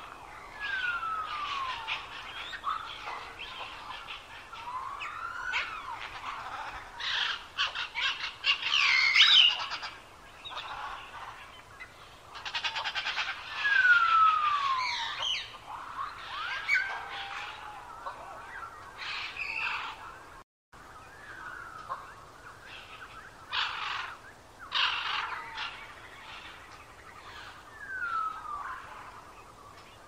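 Birds chirping and trilling in a busy chorus, with a northern cardinal's clear whistles that slide down in pitch, repeated several times. The sound drops out for an instant about two-thirds of the way through.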